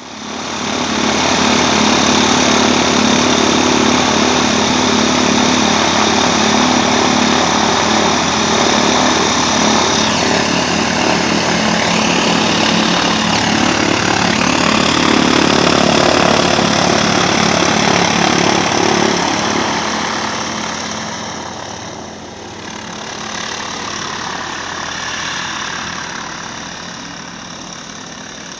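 Piston engine and propeller of a single-engine light aircraft running steadily at low taxi power close by. About two-thirds of the way in it grows quieter as the aircraft moves away.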